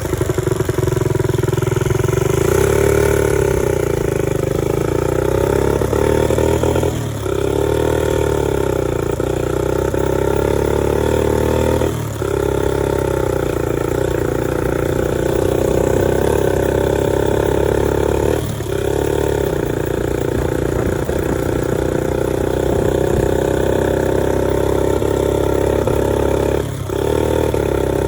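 1965 Honda S65's small single-cylinder four-stroke engine running, its pitch wavering and rising in revs. The sound drops off briefly four times, each time followed by a climb in revs.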